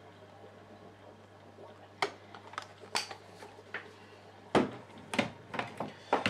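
A run of sharp clicks and knocks of hard objects handled on a wooden table: a silicone sealant gun being put down and clear acrylic panels being moved. They start about two seconds in, the loudest about halfway through, over a steady low hum.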